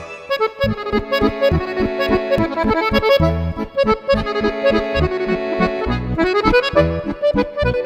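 Accordion music: a lively tune over a steady beat of bass notes, with a quick rising run about six seconds in.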